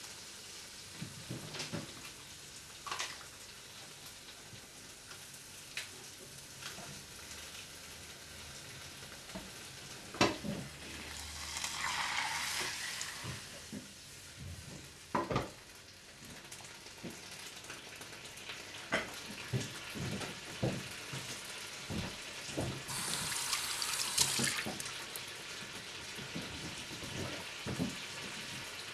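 Food frying in a pan, a steady sizzle with scattered knocks and clatter of the pan and utensils. The hiss swells louder twice, around the middle and again later on.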